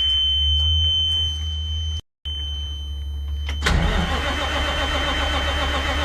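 The starter cranks the Autocar Expeditor's ISX12 G natural-gas engine, beginning suddenly about three and a half seconds in. The engine turns over in a pulsing rhythm without catching, because of a failed K3 relay. A steady high warning tone from the cab and a low steady hum sound under it.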